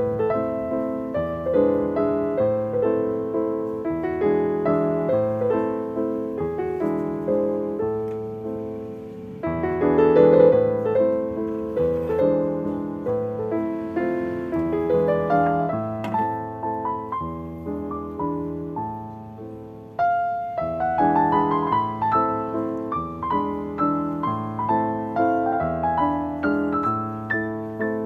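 Background piano music playing a gentle, flowing melody.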